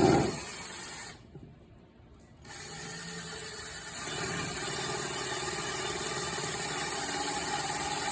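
Handheld power drill motor running, stopping about a second in, starting again after a short pause and running steadily, a bit louder from about four seconds in.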